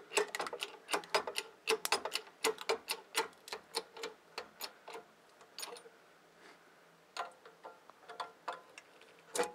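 2-ton hydraulic jack being pumped by hand, clicking in a quick, fairly even rhythm as the press is forced into a hard drive. The clicks thin out after about five seconds, and there is a louder click near the end.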